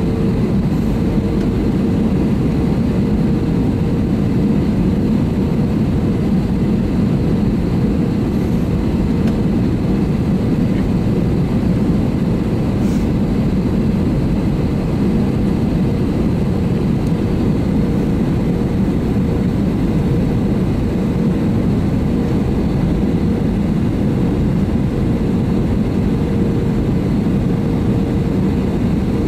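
Airbus A320neo's Pratt & Whitney PW1100G geared turbofan engines running steadily: an even, unchanging rumble with a constant humming tone over it.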